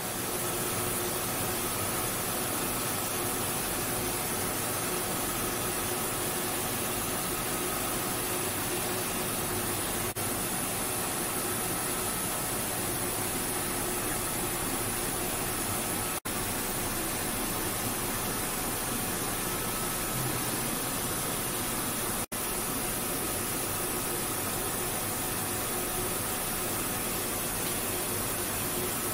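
Steady machine noise from a CNC milling machine running, an even hiss with a few faint steady tones through it. It cuts out for an instant twice.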